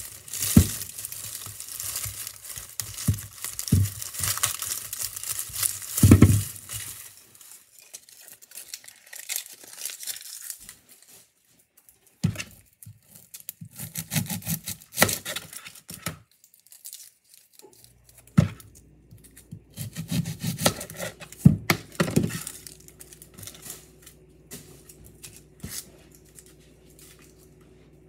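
Kitchen food-prep handling: crinkling and tearing for the first ten seconds or so, then scattered sharp knocks and short rustles on the counter.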